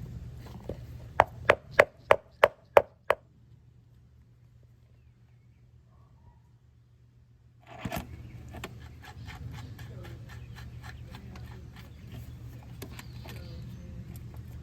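Seven quick, sharp taps, about three a second, with a slight metallic ring, as new wheel bearings are tapped into the mower wheel's hub. Later comes a single knock, then a run of small clicks and rattles as the wheel parts are handled.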